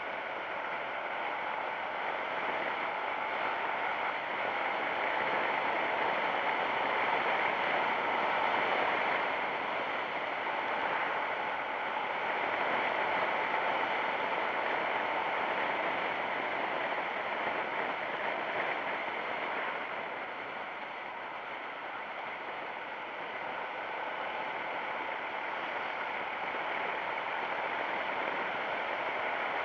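Yamaha MX King motorcycle on the move: a steady rush of wind and road noise over its engine, swelling slightly near the middle and easing briefly about two-thirds of the way through.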